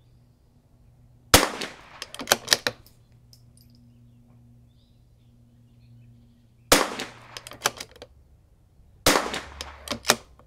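.22LR bolt-action rifle (Vudoo V-22) firing Eley Tenex match ammunition: three shots, about a second and a half in, near the middle and shortly after. Each shot is followed within a second by a quick run of sharper cracks.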